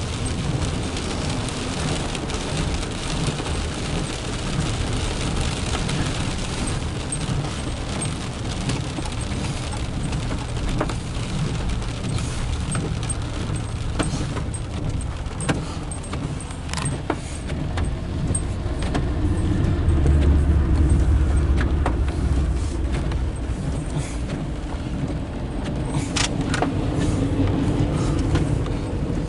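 Car cabin noise while driving on a wet road in rain: tyre hiss, engine rumble and windshield wipers sweeping. About twenty seconds in the low rumble swells as an oncoming CSX diesel freight locomotive passes alongside, followed by the steady rolling of empty autorack cars.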